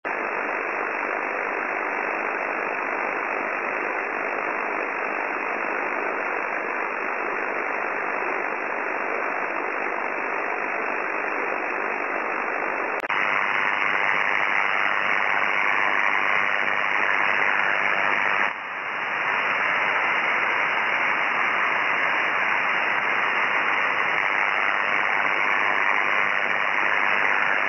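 Shortwave receiver in upper sideband giving out a steady rushing interference noise. About 13 s in it switches to a louder buzz of mains-borne interference from an LED lamp's dodgy power supply, received on an ICOM IC-7300 at 21.325 MHz. The buzz drops out briefly about 18.5 s in as the lamp is switched off and back on.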